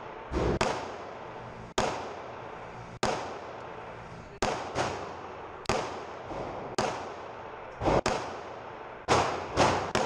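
Pistol shots fired in an uneven string, about a dozen of them, some close together in pairs, each followed by a ringing echo that dies away.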